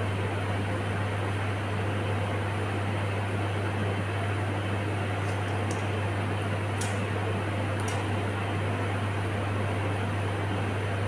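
Steady, unchanging hum of a fan, with a strong low drone underneath and a few faint clicks about halfway through.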